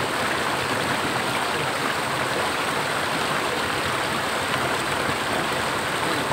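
Steady rush of a small rocky river, water running over and between rocks.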